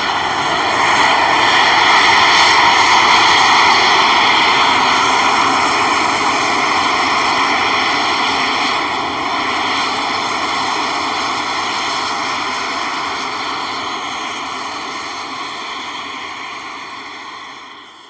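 Geothermal steam vents jetting steam out of the ground with a loud, steady roar that eases off a little over the last few seconds.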